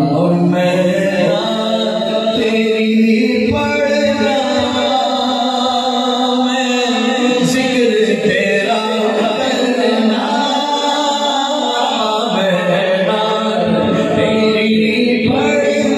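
A man sings a naat (devotional praise of the Prophet) unaccompanied into a microphone, in long held, ornamented notes. A steady low drone of voices runs beneath.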